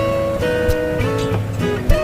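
Background music: strummed acoustic guitar with held notes and chord changes, the introduction to a song.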